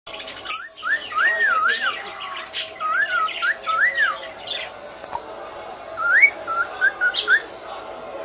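Male cockatiel whistling its courtship song: phrases of clear whistled notes that rise and fall in arches, repeated several times with short pauses, mixed with a few brief scratchy chirps.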